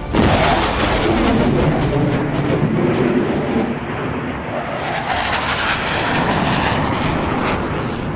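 Jet aircraft engine sound, a continuous rushing noise that thins out around four seconds in and builds again.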